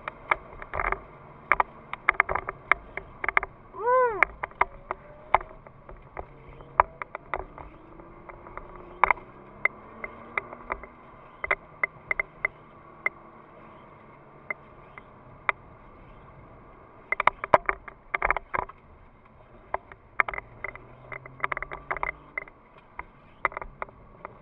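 Inside the cabin of a Nissan GT-R R35 on a wet track: the twin-turbo V6 runs faintly, changing pitch, beneath many sharp clicks and knocks, with one short squeak about four seconds in that rises and falls in pitch.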